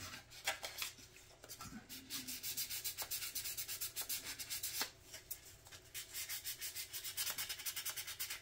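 Fine 1000-grit sandpaper rubbed by hand over the plastic body of a 1/25-scale model car kit in quick, even back-and-forth strokes, with a short pause about five seconds in. The body is being smoothed for its primer coat.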